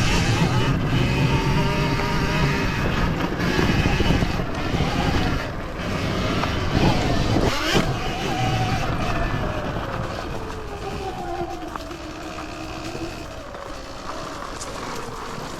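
Sur-Ron Ultra Bee electric dirt bike under way: its electric motor whines, rising and falling in pitch with speed, over heavy rumble and wind noise. In the second half the whine drops in pitch and the sound gets quieter.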